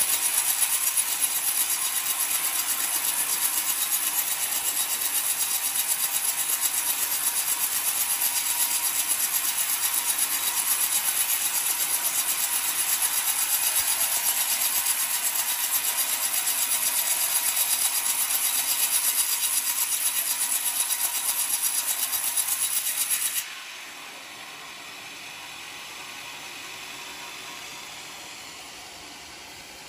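Homemade band sawmill's blade cutting lengthwise through a very old coconut log: a steady, high-pitched sawing hiss. About 23 seconds in it drops abruptly to a much quieter steady whir.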